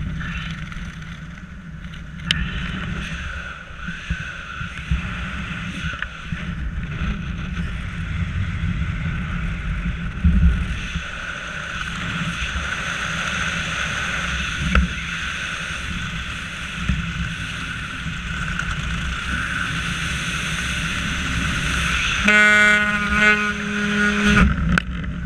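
An engine running steadily after a repair, with a horn sounding one steady note for about two seconds near the end.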